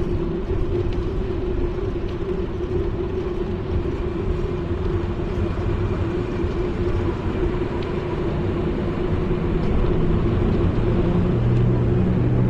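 Steady rush of wind on a GoPro action camera's microphone and tyre noise from a bicycle rolling along asphalt, with a constant hum running through it. A lower hum grows louder over the last couple of seconds.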